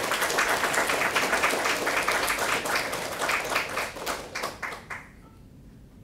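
Audience applauding, many hands clapping, dying away about five seconds in.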